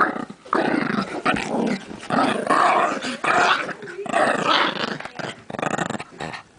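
Brussels Griffon play-growling in several rough bursts with short breaks between them. It is a frustrated play-growl over a chair, not a real threat.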